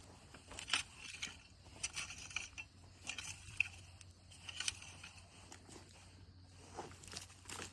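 Garden fork digging into soil, with irregular scraping and crunching strokes as the tines work through the dirt around potatoes.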